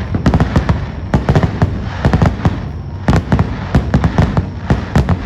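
Fireworks display going off in rapid volleys: many sharp bangs and crackles in quick succession over a continuous low rumble.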